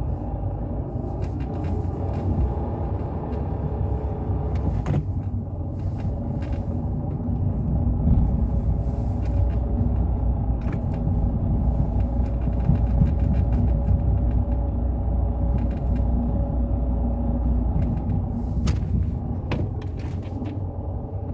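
Fiat 500 1.2's five-speed manual gearbox making a steady droning whine over the engine and road rumble, with a few light clicks. The noise comes from a worn transmission main shaft bearing.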